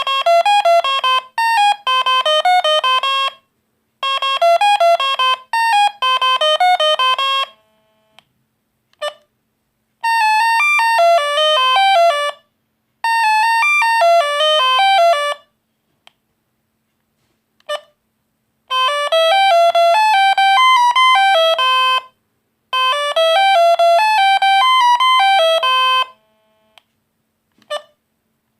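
Alcatel One Touch Easy DB mobile phone playing its monophonic beeping ringtone melodies one after another, each tune playing twice before the next begins, with short single beeps in the gaps between them.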